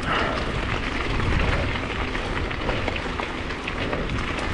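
Mountain-bike tyres rolling over a loose gravel trail: a steady crunching hiss with many small stone clicks and rattles.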